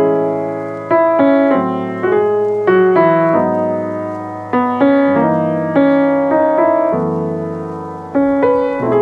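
Background music: a solo piano piece, with chords struck about once a second and left to ring and fade.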